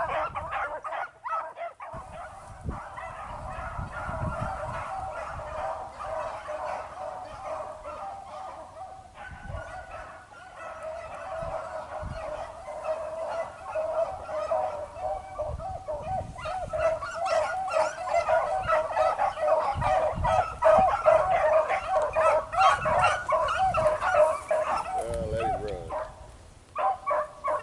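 A pack of beagles baying in full cry, many overlapping bawls and yelps as the hounds run a rabbit's scent trail. The calls grow louder from about sixteen seconds in and fall away near the end.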